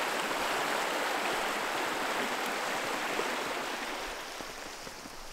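A shallow creek running over rocks: a steady rush of water that grows fainter over the last second or two.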